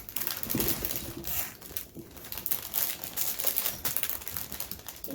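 Plastic bags of Lego pieces crinkling and rustling as they are handled and pulled from the box, with scattered small clicks.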